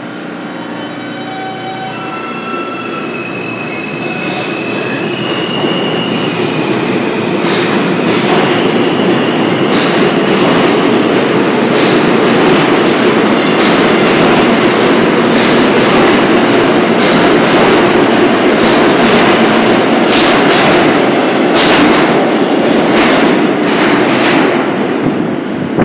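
R160 subway train with Alstom propulsion pulling out of the station: a motor whine climbs in steps during the first several seconds as it accelerates. The noise of the cars rolling past then builds, with a run of sharp wheel clacks over the rail joints, and eases near the end as the last car leaves.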